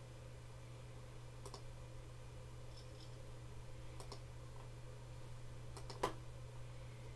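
Sparse single clicks of a computer mouse, about one every two seconds, with a sharper, louder click about six seconds in, over a steady low electrical hum and faint hiss.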